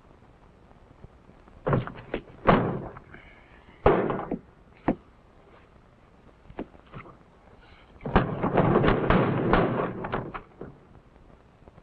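Knocks and bangs of kitchen cupboard doors and things being handled: a few separate thuds in the first five seconds, then a dense clatter lasting about two seconds.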